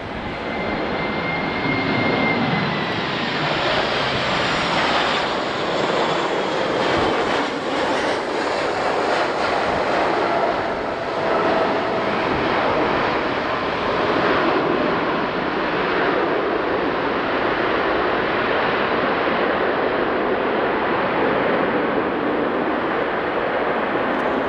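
Boeing 737-800's CFM56 turbofan engines on a landing: a high whine that falls in pitch as the jet passes during the approach, then a steady engine rush through touchdown and the rollout on a wet runway.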